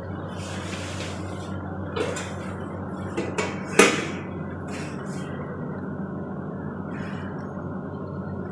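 Stainless steel tray and lid knocking and clinking as they are handled, with a few light knocks and then one sharp metallic clank about four seconds in, over a steady low hum.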